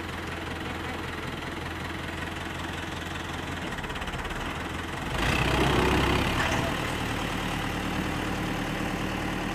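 New Holland 640S tractor's diesel engine running steadily, then revving up hard about five seconds in for a second or so as the stuck tractor strains under load to get free, before settling back to a steady run at a slightly higher pitch.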